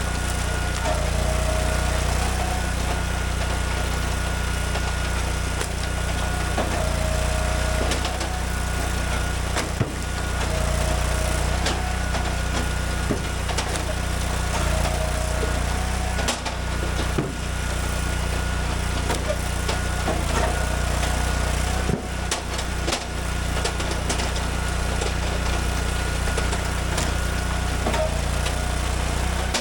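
Gas engine of a hydraulic log splitter running steadily, its note shifting slightly every few seconds as the splitter cycles. A few sharp knocks come through, the clearest about ten seconds in and again near twenty-two seconds.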